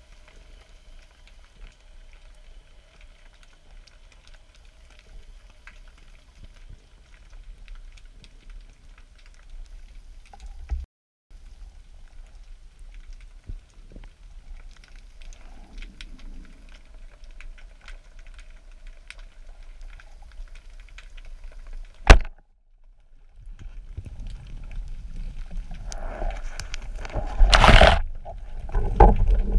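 Underwater sound of the sea: a low steady hiss with faint scattered clicks, then one sharp loud crack about two-thirds of the way through, a band-powered speargun firing. Louder rushing and splashing water follows as the speared fish is handled near the surface.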